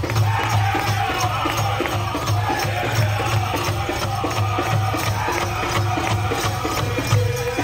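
Powwow drum and singers: a big drum struck in a steady, quick beat under high, gliding chanted voices, with a jingling rattle over it.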